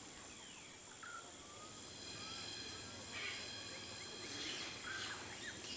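Rainforest ambience: a steady high-pitched insect drone, with short bird chirps and whistles scattered through.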